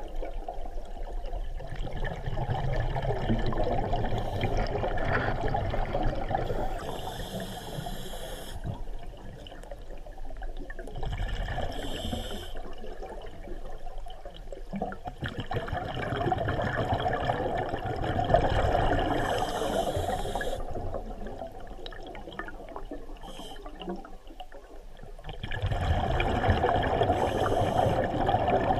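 Underwater recording of a scuba diver breathing through a regulator: a rush of exhaled bubbles that swells and fades in slow cycles of several seconds, with short hissing inhales between, heard through the camera's waterproof housing.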